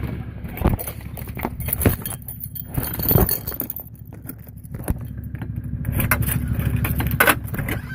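Keys jangling, with a series of sharp clinks and knocks, over a low steady rumble.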